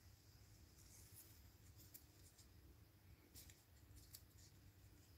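Near silence with a few faint, scattered scratches and rustles of gloved hands working in grass.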